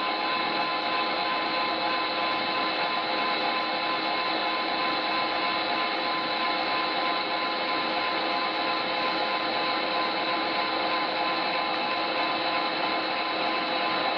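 ZMM Sliven CU1000RD screw-cutting lathe running steadily, with a constant machine whine of several fixed tones over a steady mechanical hum.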